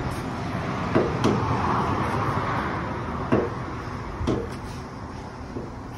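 Four sharp knocks over a steady background rumble: two close together about a second in, then single knocks past three and past four seconds.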